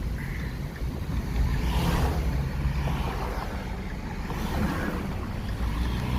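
Road and engine noise heard inside a moving car: a steady low rumble.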